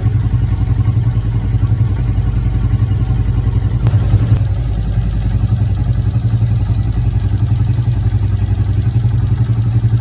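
Motorcycle engine idling steadily with fast, even pulsing, a bike showing a clutch noise problem. Two sharp clicks about four seconds in.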